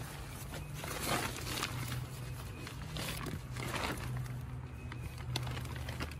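Nylon tent fabric rustling and swishing in several short brushes as it is handled and pulled. A steady low hum runs underneath.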